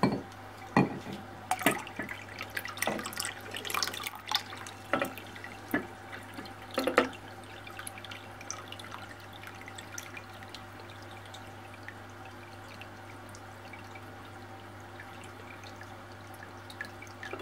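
Peat and water poured from a glass jar into an aquarium: splashes and drips over the first seven seconds or so, then a steady low hum with only faint drips.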